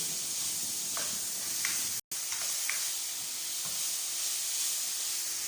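Chicken pieces, carrots and other vegetables sizzling as they sauté in hot oil in a pot, a steady hiss with a few light clicks of the stirring spoon. The sound drops out for an instant about two seconds in.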